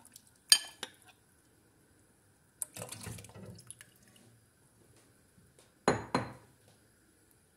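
Yogurt-egg sauce poured from a glass bowl into a stainless steel pot of soup: a sharp clink against the pot about half a second in, a soft splashing pour in the middle, and two quick clinks of metal on the pot near the end.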